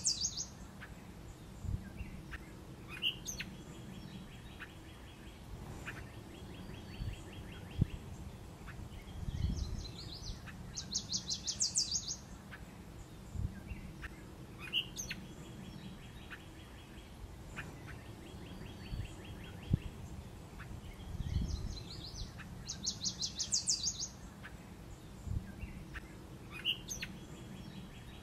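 Songbirds singing: a fast high trill of rapidly repeated notes about every twelve seconds, each followed a few seconds later by a fainter, lower trill, over a low outdoor rumble. The same pattern recurs three times, as in a looped ambience track.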